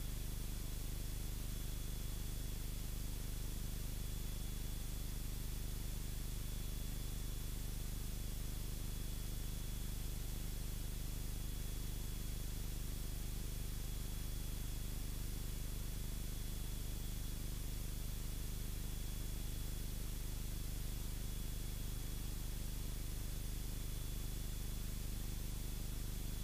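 Steady hiss of an aircraft intercom audio feed with a low steady hum beneath it and a faint thin high whine, unchanging throughout.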